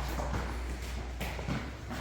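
Irregular knocks and taps from work on kitchen cabinets, over a steady low hum.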